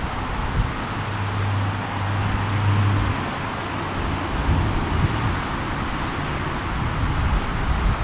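Outdoor road-traffic noise with low wind rumble on the microphone. A low steady hum, such as a vehicle engine, sounds from about a second in for about two seconds.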